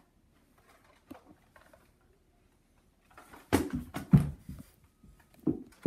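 A few faint ticks, then, about three and a half seconds in, a quick cluster of knocks and thumps from footsteps and from the camera being handled while it is carried fast. One more thump comes near the end.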